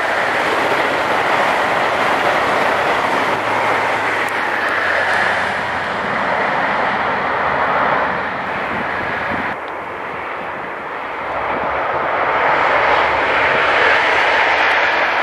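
Passenger trains in East Coast livery passing at speed: a steady rush of wheels on rail and air. The level dips briefly about ten seconds in, then rises again as another train crosses the bridge.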